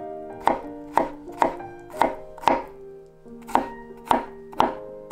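Chef's knife chopping garlic on a cutting board: about nine sharp strikes, roughly two a second, with a short pause near the middle.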